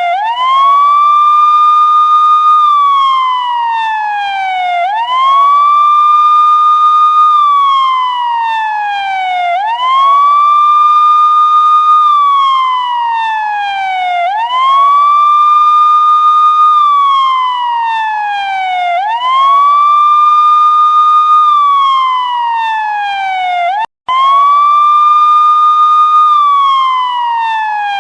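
Police siren wailing. In each cycle the pitch rises quickly, holds high for about a second and a half, then falls slowly, and the cycle repeats roughly every five seconds. It cuts out for an instant about 24 seconds in.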